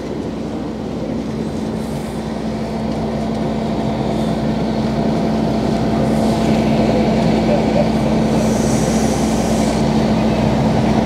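Boat's outboard motor running at low speed, a steady engine drone that grows gradually louder.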